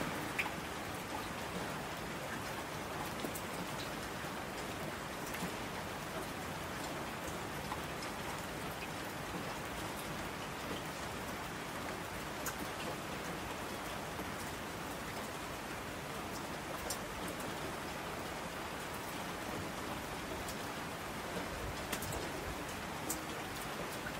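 Steady rain falling: an even hiss with scattered sharper ticks of individual drops.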